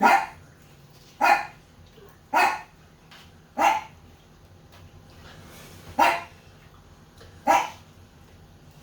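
A dog barking six times in single short barks, about one every second or so, with a pause in the middle.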